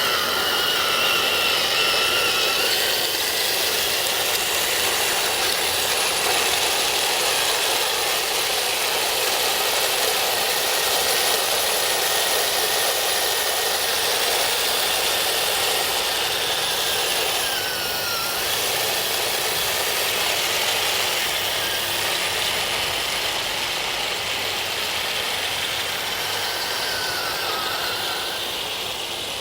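RC model M26 tank with metal tracks driving: its small electric drive motors and gearboxes whine while the metal track links clatter steadily. The whine rises and falls in pitch a few times as the speed changes.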